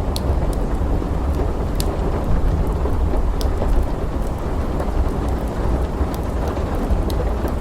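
Thunderstorm ambience: a steady deep rumble of thunder under the hiss of heavy rain, with scattered sharp crackles from a wood fire in a fireplace.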